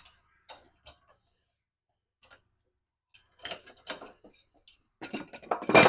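Scattered clicks and knocks of parts and tools being handled on a manual tire changer, with a louder clatter near the end.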